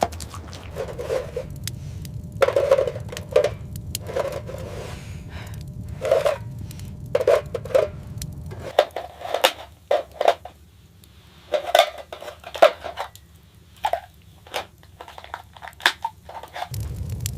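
A series of short knocks, scrapes and crunches from objects being handled, over a low steady rumble that drops away about halfway through and comes back near the end.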